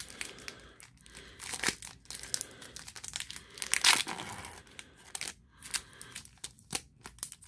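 Foil Pokémon booster pack wrapper being torn open and crinkled in the hands: irregular crackling and ripping, loudest about four seconds in.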